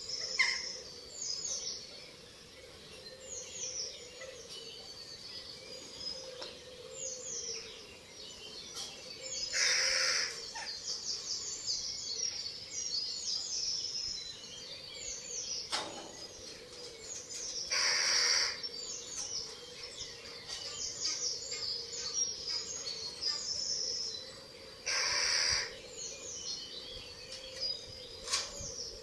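Small songbirds singing with many quick, high, falling chirps, while about every seven or eight seconds a hoarse, hissing call of about a second sounds, three times, typical of the begging call of young Eurasian eagle owls. A faint steady hum runs underneath.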